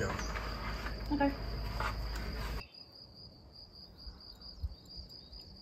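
A steady, high insect trill, with a few light knocks of wooden planks being handled over a low background hum. About two and a half seconds in, the background cuts off abruptly, leaving only the faint trill.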